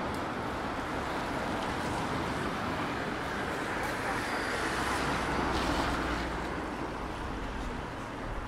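Steady city traffic noise on a wet street: a continuous hiss and low rumble of vehicles, with no single event standing out.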